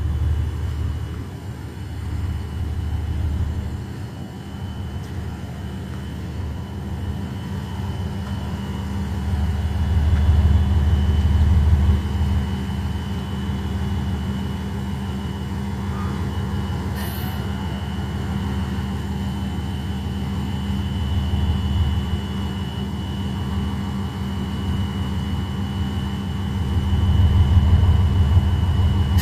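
JR Freight DF200 diesel-electric locomotive running, a steady low engine drone that swells louder about ten seconds in and again near the end.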